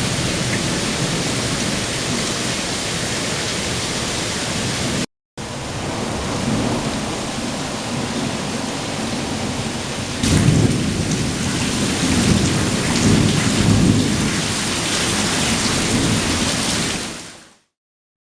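Heavy rain pouring down in a thunderstorm, with low rolling thunder. The thunder swells louder about ten seconds in. The sound breaks off for a moment about five seconds in and fades out near the end.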